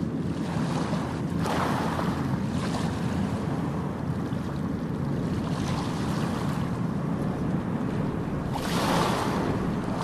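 Ocean surf: a steady rush of waves, with a wave breaking and washing in about a second and a half in and another near the end.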